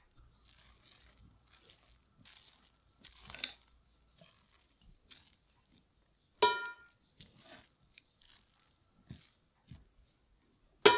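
Wooden spoon scraping and stirring cooked rice in a black pot, soft rustling scrapes, with two sharp ringing clinks against the pot, one a little past the middle and a louder one at the very end.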